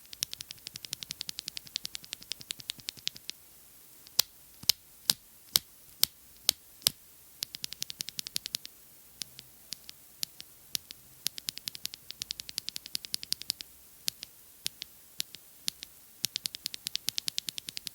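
Typing on a mechanical keyboard fitted with Clackbits linear switches: quick runs of keystrokes, broken about four seconds in by seven slower, louder single key presses about half a second apart, then steady typing again.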